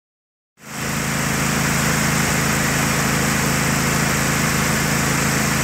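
Kawasaki FH531V 18 hp air-cooled V-twin riding-mower engine running steadily, cutting in abruptly about half a second in. It now runs on newly fitted ignition coils, replacing dead coils that gave no spark.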